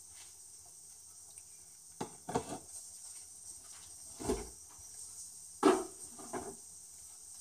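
A few light knocks and clatters of kitchen items being handled, the loudest about two thirds of the way in, over a faint steady hum.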